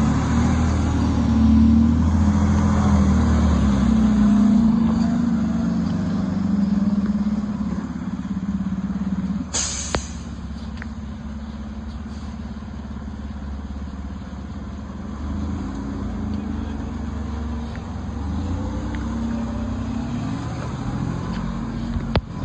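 Fire engine's diesel engine running as the pumper pulls away, a steady low rumble that is loudest at first and grows weaker after about seven seconds as it moves off. About ten seconds in comes a short high hiss.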